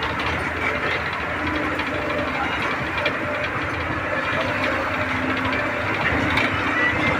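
Steady road noise from a vehicle driving along a city street: engine and tyre rumble.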